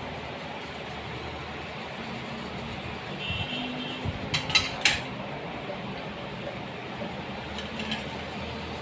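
Small hard tools clicking and clinking on a workbench during motherboard cleaning: a quick cluster of three or four sharp clicks about four seconds in and a few lighter ones near the end, over a steady background hiss.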